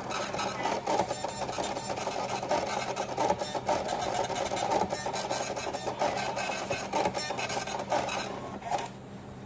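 A small machine runs with a dense, buzzing rattle, starting suddenly and cutting off shortly before the end.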